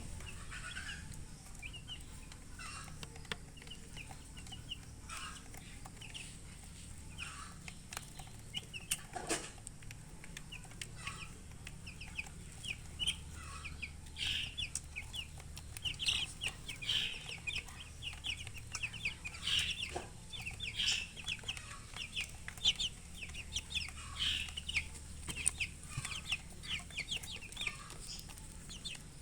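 Chickens chirping: a steady stream of short, high peeps that grows busier and louder about halfway through, with a couple of sharp knocks.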